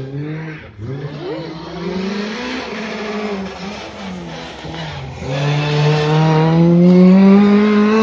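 Opel Adam rally car's four-cylinder engine taking a hairpin: a quick throttle blip about a second in, a few seconds of lower off-throttle running through the bend, then full-throttle acceleration out of the hairpin from about five seconds in, louder, the pitch rising steadily.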